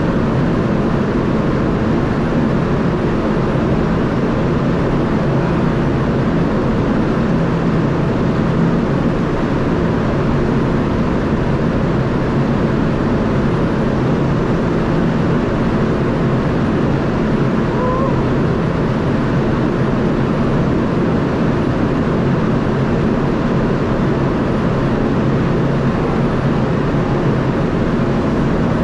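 Steady, even drone of a ship's machinery heard on deck, with a faint low hum running through it.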